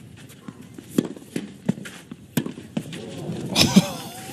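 Clay-court tennis rally: racket strikes on the ball and shoe scuffs on clay as a string of sharp knocks, with a loud player's grunt about three and a half seconds in, the loudest sound.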